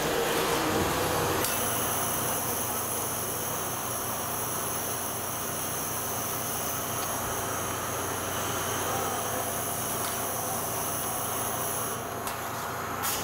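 Metal-cutting saw running steadily through a rectangular steel tube, with coolant flowing over the blade: a continuous machine hum with a high hiss. The hiss drops away about twelve seconds in as the cut finishes.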